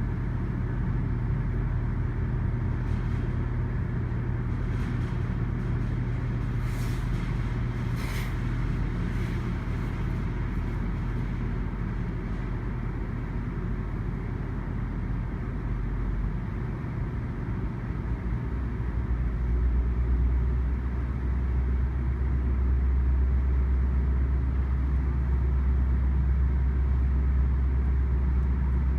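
GO Transit diesel locomotive engine running with a steady low drone, growing louder about two-thirds of the way through.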